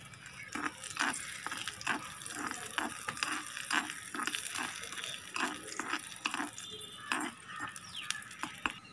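Raisins frying in hot ghee in a small clay pot: a steady sizzle under the repeated scrape of a small metal slotted spoon stirring them against the clay, about two strokes a second.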